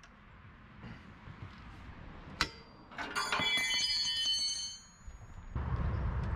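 A sharp metal knock about two seconds in, then a steel breaker bar clanging and ringing with several high tones for nearly two seconds while working a corroded axle bolt. A low rumble comes in near the end.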